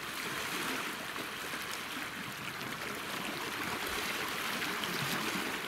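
Small sea waves lapping and washing over shoreline rocks, a steady watery wash.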